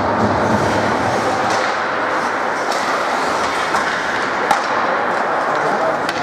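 Ice hockey play: a steady rush of skates scraping the ice under general arena noise, with a few sharp clacks of sticks on the puck.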